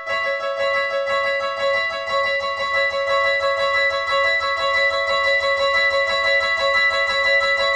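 Synthesized level-crossing warning sound: a steady electronic tone pulsing fast and evenly.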